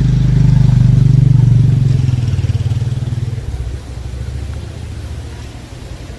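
A motor vehicle engine running close by, loudest in the first two seconds and then dropping in level, its pulsing growing more distinct as it settles toward idle.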